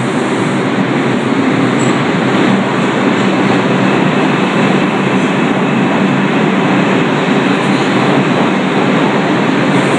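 New York City subway train on the Lexington Avenue Line running past close by, a loud steady rumble of wheels on track that builds through the first second and then holds.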